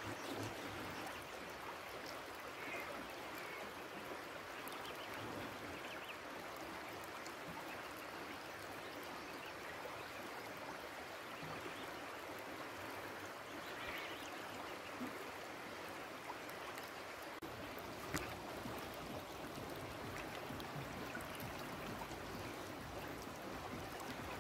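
Steady sound of flowing river water.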